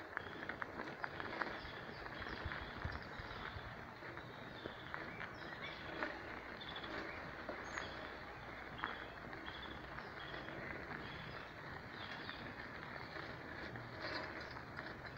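Small birds chirping in short, repeated calls over a steady outdoor hiss, with scattered light crunches of footsteps on a dry, leaf-strewn dirt path.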